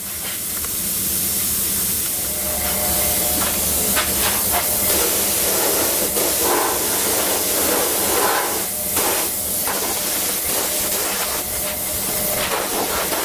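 Gravity-feed pneumatic spray gun spraying paint onto a car's front panel: a steady hiss of compressed air and atomised paint.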